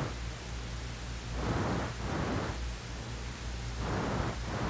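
Steady hiss with a low hum beneath it, swelling and fading a few times. It is the background noise of an old recorded soundtrack, heard between narration lines.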